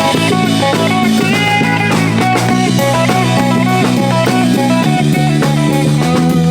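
Rock music: electric guitar lines played over a drum kit, loud and continuous.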